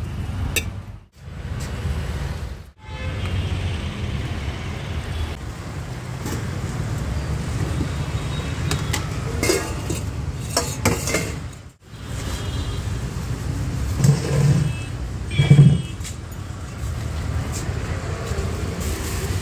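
Steady low rumble of street traffic, dropping out briefly three times. About ten seconds in there are a few metallic clinks of steel utensils, and two short louder sounds come near the end.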